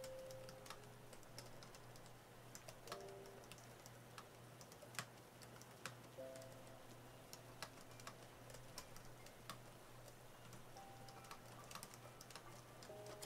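Typing on an AlphaSmart portable word processor's keyboard: irregular, soft key clicks at a steady working pace. Faint, sparse piano music plays under it.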